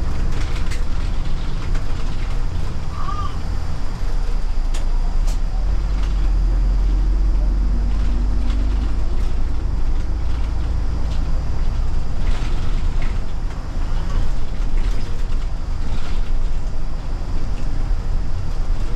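Steady low rumble of a city route bus's engine and tyres on the road, heard from inside the cabin at the front while the bus is driving.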